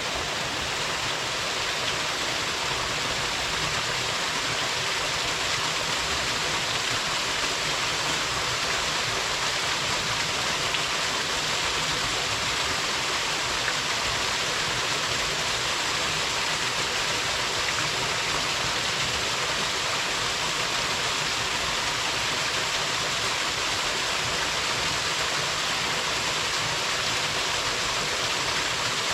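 Small mountain waterfall pouring into its plunge pool: a steady, even rush of falling water.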